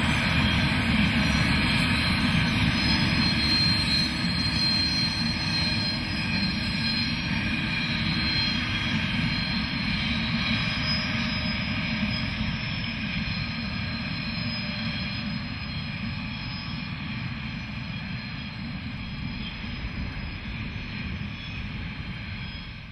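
Deutsche Reichsbahn V100 (class 112) diesel-hydraulic locomotives hauling a freight train past: a steady engine drone over the rumble of the wagons, fading slowly as the train moves away.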